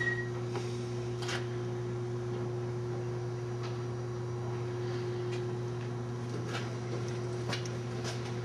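Steady low hum with a single steady higher tone above it, and a few faint clicks scattered through.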